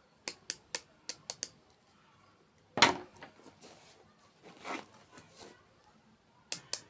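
A run of sharp, close-up clicks and crackles: several quick ones at first, a louder crunch about three seconds in, a softer one a little later, and two more sharp clicks near the end.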